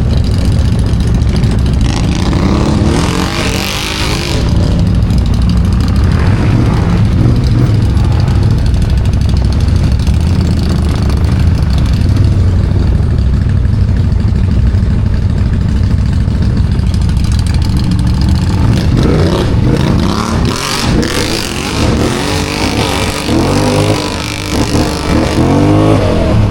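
ATV engine running loud and being revved, its pitch rising and falling repeatedly in the last several seconds.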